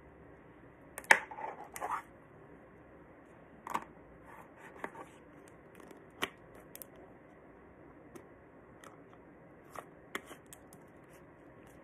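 Plastic slime tubs handled on a wooden tabletop: a few scattered clicks, knocks and rustles, the loudest about a second in.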